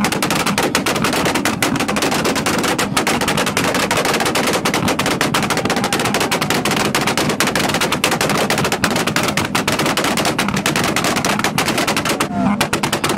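Two-step launch-limiter backfires from a Mazda RX-7's rotary engine and a second car held at the rev limiter: the exhausts bang in a rapid, unbroken stream of pops, many a second, as unburnt fuel ignites in the exhaust and shoots out as flames.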